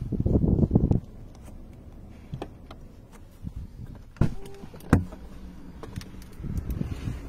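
A loud rumbling burst of about a second as a hand works the Rolls-Royce Cullinan's door-panel switches, then two sharp clicks about four and five seconds in, and a softer rumble near the end.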